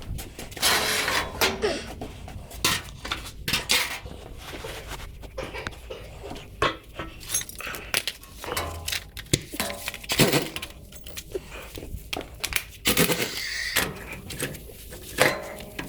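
Irregular clanks and clinks of metal tools and parts being handled, in quick separate knocks with short gaps between them.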